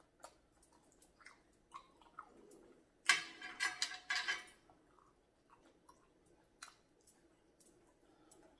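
Close-miked chewing of a mouthful of grits, with small wet mouth clicks and a fork clicking on a glass plate. The sound is busiest about three to four and a half seconds in.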